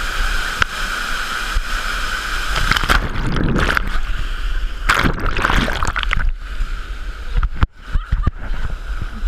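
Waterfall rushing steadily, with splashing and sloshing from someone in the water, loudest about three and five seconds in.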